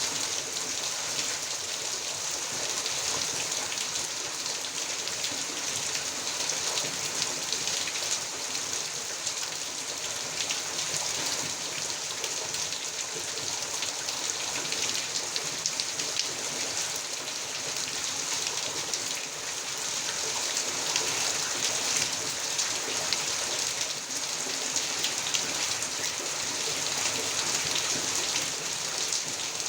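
Heavy rain falling steadily: a dense, even hiss flecked with many small drop impacts.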